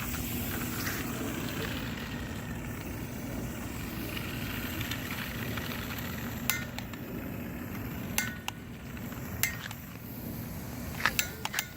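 Sparklers on a remote-control car fizzing with a steady hiss, with several sharp clicks in the second half.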